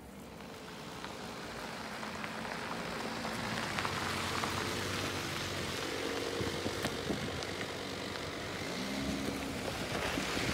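A VW Touareg and then a Suzuki Jimny drive past slowly on a gravel track: engines running and tyres crunching and crackling over loose gravel, growing louder over the first few seconds as the vehicles come close.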